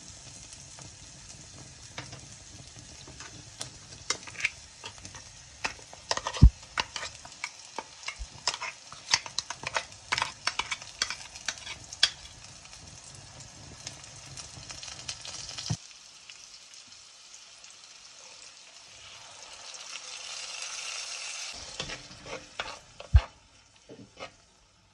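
Onions, ginger and green chillies sizzling in oil in a clay pot while a spatula stirs and scrapes, with frequent sharp clicks of the utensil against the pot. About two-thirds of the way through the sizzle cuts off suddenly; a softer hiss then swells and fades, followed by a few more clicks as coconut masala paste is mixed in.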